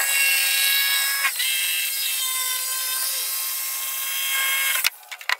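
Handheld electric jigsaw cutting a hatch opening in a plywood board: a steady motor whine with the rasp of the blade, which stops abruptly near the end, followed by a couple of clicks.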